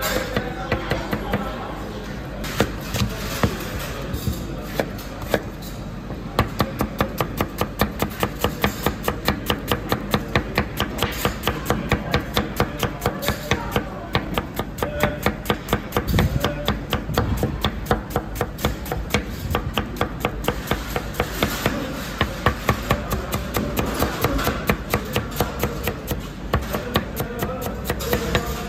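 Knife chopping on a cutting board in a quick, steady rhythm of sharp strokes, several a second, with music underneath.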